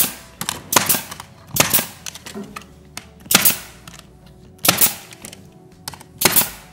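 Pneumatic brad nailer firing about six times, one sharp crack with a short hiss of exhaust air each shot, roughly a second or so apart, driving nails through flexible trim moulding.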